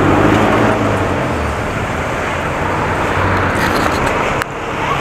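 Road traffic: motor vehicles running and passing close by, a steady loud mix of engine hum and road noise, with one sharp click near the end.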